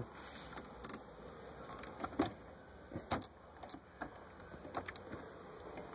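Scattered light clicks and taps of plastic dash trim being handled and lined up, with a few sharper clicks over a faint background.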